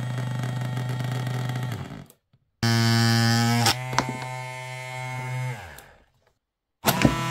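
Massage gun's DC motor overvolted at 15 V from a bench power supply, running with a steady electric hum that winds down and stops about two seconds in. It starts again louder, dips slightly in pitch after a couple of clicks, winds down again, and restarts with clicks near the end.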